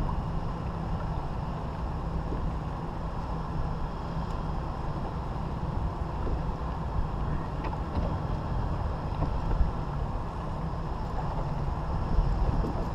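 Steady low rumble of wind buffeting the microphone on an open boat, with a faint steady hum underneath.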